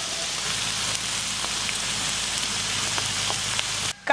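Sliced carrots, onions and green peas sizzling as they fry in oil in a large pan: a steady hiss with a few faint ticks, cutting off suddenly near the end.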